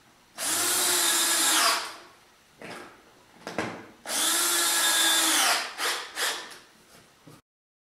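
Cordless drill/driver driving two screws into wood, each run about a second and a half, the motor's pitch dropping as the screw seats. A few light knocks of handling follow.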